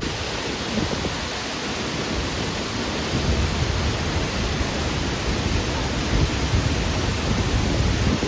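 Waterfall's falling water rushing as a loud, steady noise, with heavier irregular low rumbling from about three seconds in.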